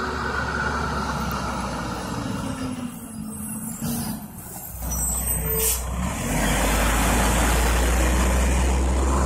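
A front-loader garbage truck's diesel engine running as the truck drives past, with short hisses from its air brakes about four and six seconds in. The engine gets louder from about six seconds in as the truck passes close by.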